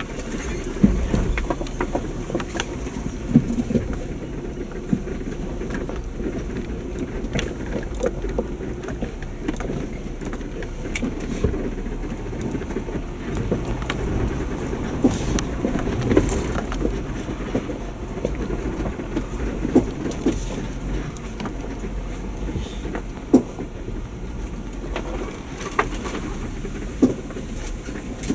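2019 Jeep Wrangler Unlimited Sahara crawling slowly over a rocky dirt trail: a steady low engine and drivetrain rumble, with scattered sharp knocks and clicks as it goes over rocks.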